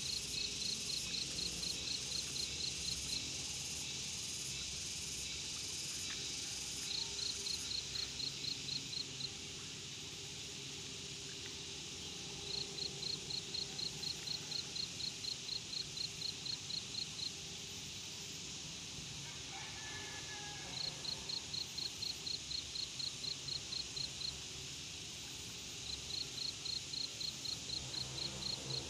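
An insect calling in five bouts of quick, evenly spaced high pulses, about four a second, each bout lasting three to five seconds, over a steady high hiss that weakens after about seven seconds.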